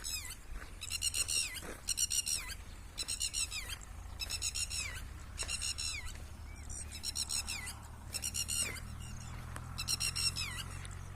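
A bird calling over and over: about a dozen loud, harsh, high-pitched calls, each about half a second long and falling in pitch at its end, coming roughly once a second with a short pause midway.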